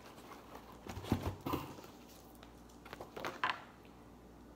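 Light rustling and a few soft taps and clicks of packaging and items being handled, clustered about a second in and again past three seconds.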